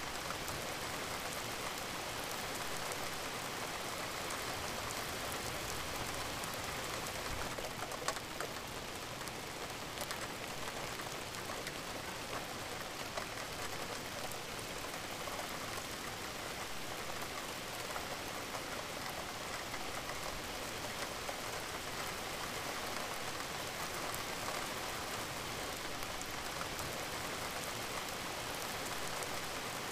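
Steady rain falling, an added rain sound track, with two sharper ticks about eight and thirteen seconds in.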